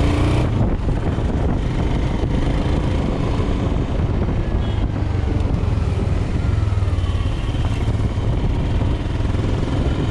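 Royal Enfield Himalayan's 411 cc single-cylinder engine running steadily under way on a test ride with fresh oil, mixed with steady wind and road rumble on the rider's camera microphone.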